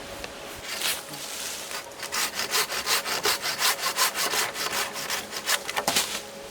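Hand saw cutting through wood in quick, even back-and-forth strokes, starting about two seconds in and stopping shortly before the end.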